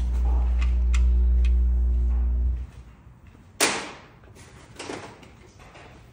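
A steady low machine hum that cuts off abruptly about two and a half seconds in, with a few light clicks over it. About a second later comes a single sharp, loud noisy burst, then a softer one about a second after that.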